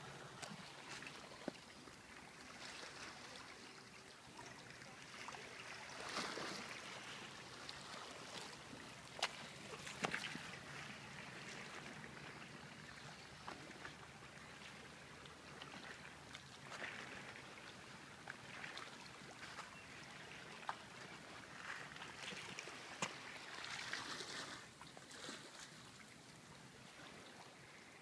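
Small sea waves lapping and washing among shoreline rocks, with water trickling, swelling louder a few times, and a few sharp clicks.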